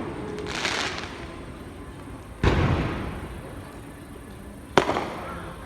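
Aerial fireworks shells bursting: a hissing crackle about half a second in, then two sharp booms, one about two and a half seconds in and one near the end, each trailing off in a rolling echo.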